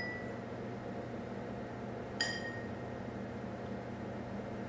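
A high, bell-like chime struck once about two seconds in, ringing for about half a second over a steady low hum.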